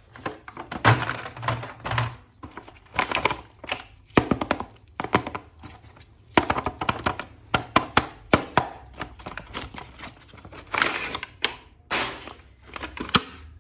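Hands handling a plastic toy figure and its packaging: an uneven string of clicks, knocks and short rustles.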